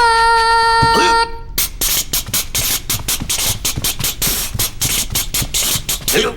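Cartoon sound effects: a held, buzzy note for about a second and a half, then a rapid run of sharp clicks or knocks, about five or six a second, that stops just before the end.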